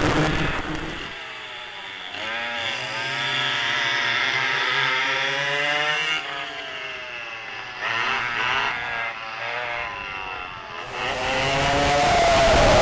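Vintage twin rear-engine racing kart engines, the high buzz of small two-strokes heard from on board, their pitch climbing and dropping several times as the karts accelerate and lift through corners. Near the end the sound turns louder and rougher, with more rushing noise.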